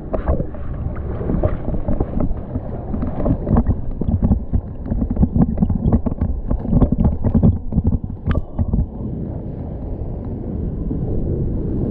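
Surf-pool wave water rushing and splashing right around an action camera, with heavy low rumbling buffeting on the microphone and many small splash knocks. A short high tone sounds about eight seconds in.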